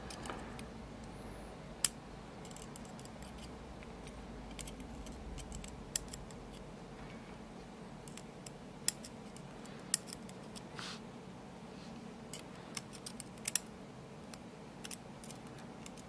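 Small, sharp metal clicks and ticks, irregular and spaced a second or more apart, from steel tweezers probing and catching on the pins inside an Assa Desmo lock plug as they are worked out of the plug.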